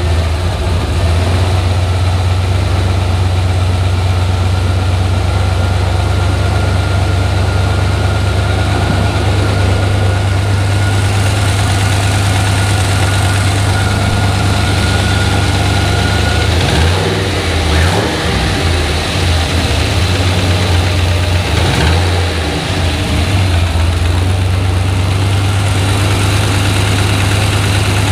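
Turbocharged 5.3-litre LS V8 with an aluminium block, idling steadily just after a restart, with a couple of brief revs about two-thirds of the way through. The engine has been freshly rebuilt with a replacement for a bent connecting rod: some lifter noise can still be heard, but there is no loud clacking.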